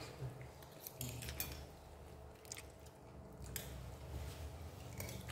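A person eating instant noodles with a fork: quiet chewing and mouth noises, with a few light clicks of the fork against a plate.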